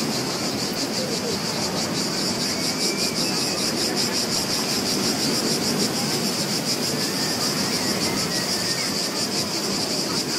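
Beach ambience recording: a steady wash of surf under a high, rapidly pulsing insect chirring.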